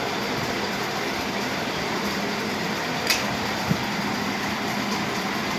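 Steady hissing room noise, with a sharp click about three seconds in and a soft knock just after, from small plastic toy furniture being handled.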